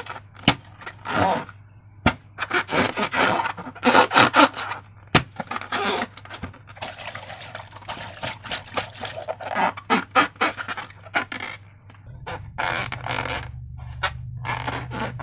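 Slime and rubber balloons being handled: an irregular run of short wet squishing, rubbing and crackling sounds with sharp clicks in between. A low steady hum comes in about twelve seconds in.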